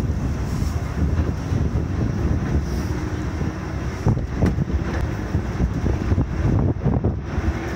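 Volk's Electric Railway two-axle car running along its narrow-gauge track: a low rumble with several knocks about four to seven seconds in as the short-wheelbase car jolts over the rails, and a faint steady hum. Strong wind buffets the microphone over it.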